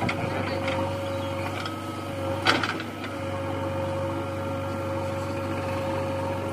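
Diesel engines of a JCB backhoe loader and a Mahindra 575 DI tractor running steadily while the loader tips a bucket of soil into the tractor's trolley, with a steady high whine over the engine hum and a single sharp clank about two and a half seconds in.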